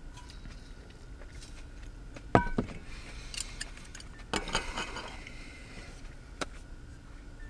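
Kitchenware being handled in a small space. There is a sharp ringing clink about two seconds in, then a few seconds of rustling and scraping with another clink, and a single click near the end.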